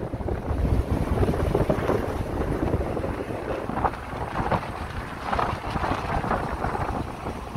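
Wind buffeting the microphone of a phone filmed from a moving motorcycle, an irregular gusting rush with a low rumble underneath.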